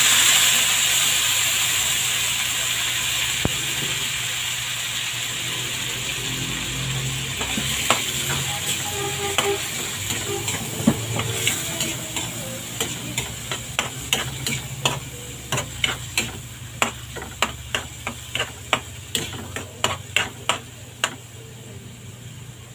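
Canned corned beef frying in hot oil in a metal wok: a loud sizzle that starts at once as the meat goes in and slowly dies down. About a third of the way in, a metal spatula starts stirring and scraping, its clinks against the pan coming several a second by the end.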